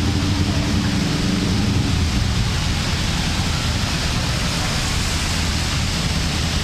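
Steady rush of heavy rain, with a low hum that fades out about two seconds in.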